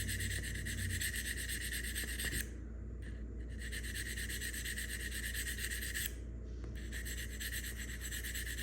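Sharpening stone scraping against the blade of a Gracey 11/12 dental curette in quick, repeated strokes, a steady rasping that twice breaks off briefly, about two and a half seconds in and again about six seconds in.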